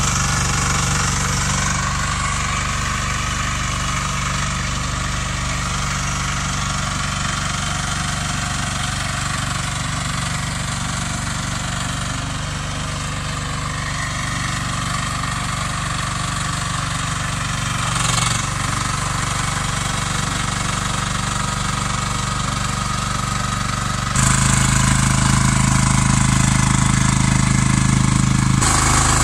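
Engine of a Shanding SD12 mini excavator running steadily while the machine is driven and worked. About 24 seconds in it becomes louder and deeper.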